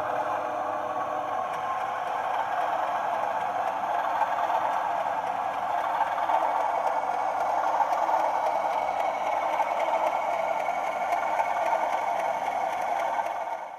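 A sound-fitted 00 gauge model locomotive running: its DCC sound decoder plays locomotive engine sound through a small onboard speaker, giving a steady tinny drone, with light rattle from the model on the track. The sound cuts off abruptly at the end.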